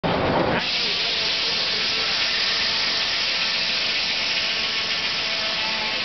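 Steady hiss of steam from a steam-powered sawmill's machinery, with a few faint steady tones under it. A louder, fuller burst of noise fills the first half second.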